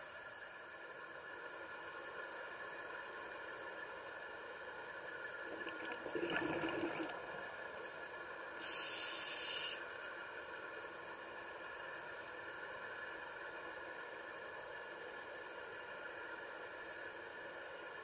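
Underwater recording of a scuba diver's breathing over a steady hiss: a bubbly exhale about six seconds in, then a sharp hiss of about a second near nine seconds, an inhale through the regulator.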